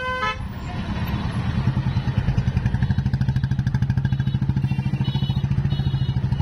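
Vehicle engine running close by with a fast, even throb that grows louder about a second in, then holds steady.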